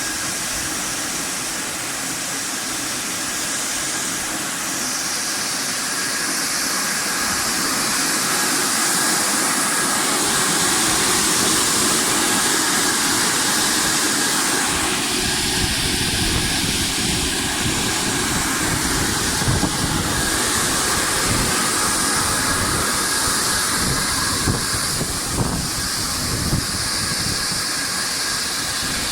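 Jujube washing and drying line running: a steady machine hiss with a faint constant whine. About halfway through, a low rattling rumble with irregular knocks joins in.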